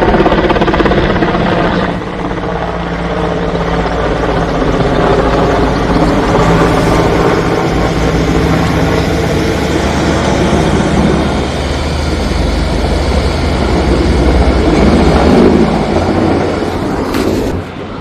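Helicopter flying overhead: steady rotor and engine noise, which drops in level shortly before the end.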